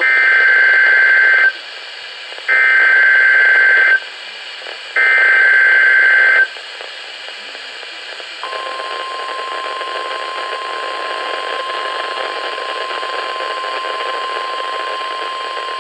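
NOAA Weather Radio Required Weekly Test tones. Three short screechy bursts of SAME digital header data, each about a second and a half long with a pause between them. About eight seconds in, the steady 1050 Hz tone-alert signal begins, all over radio receiver hiss.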